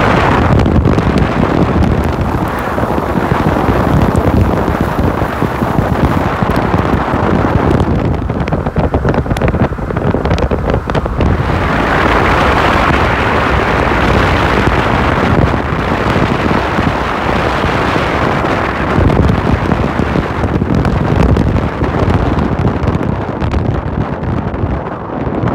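Loud wind rushing and buffeting over the microphone from a moving car, gusting harder for a few seconds in the middle, with car road noise underneath.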